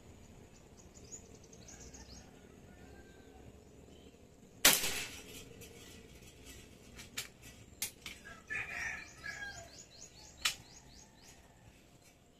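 One sharp air rifle shot about four and a half seconds in, with a short ringing tail, followed by a few lighter clicks and a sharper click as the gun is handled. Small birds chirp around it.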